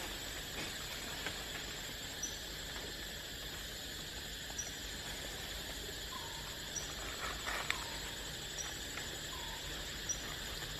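Quiet outdoor background: a steady high hiss with faint short chirps repeating every couple of seconds, and a few soft clicks about seven seconds in.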